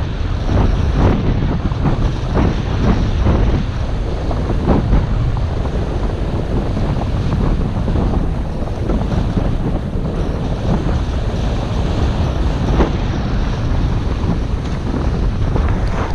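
Wind buffeting a skier's action-camera microphone at speed, with the skis scraping and hissing over packed groomed snow in short, frequent strokes.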